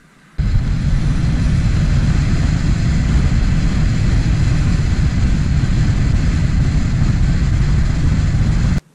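Four-wheel-drive vehicle driving along a sand beach, heard from a camera mounted on its outside: a loud, steady rush of wind on the microphone mixed with engine and tyre noise. It starts abruptly about half a second in and cuts off just before the end.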